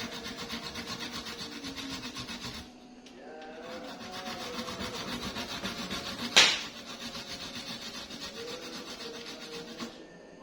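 Kencur (aromatic ginger) root being grated on a hand grater: quick rasping strokes, about four or five a second. The strokes pause briefly about three seconds in, and there is one sharp knock a little past halfway.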